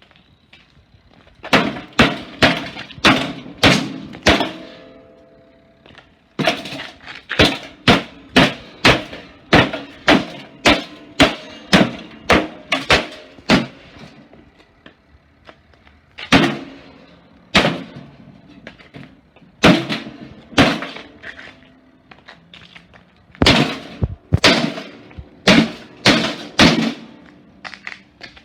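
A toaster oven being smashed: runs of hard blows, about two a second, on its sheet-metal body, with the metal ringing and glass breaking. The blows come in four bursts with short pauses between.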